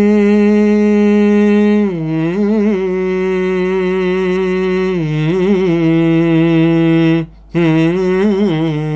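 A man's solo voice singing an a cappella line of wordless held notes. Each note lasts a couple of seconds and is joined to the next by a short wavering ornamental turn, with a brief break for breath about seven seconds in.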